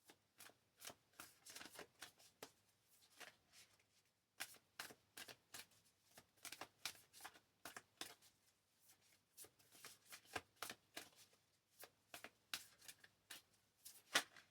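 Deck of tarot cards being shuffled by hand: a quiet, quick run of short card slaps and flicks, with a brief pause about four seconds in.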